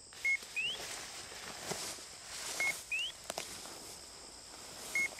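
A short two-part chirp, a brief flat note and then a quick rising note, repeats about every two and a half seconds. Under it runs a steady high buzz of insects, with a couple of light rustles.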